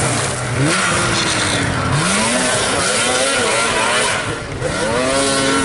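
Arctic Cat race snowmobile's two-stroke engine revving up and down repeatedly as the throttle is worked through the corners, with track and snow noise underneath.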